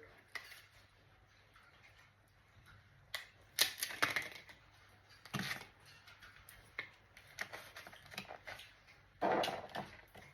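Scattered clicks, taps and short scrapes of hands and small tools working on a laptop's plastic case, with the longest scrapes a little under half-way through and near the end.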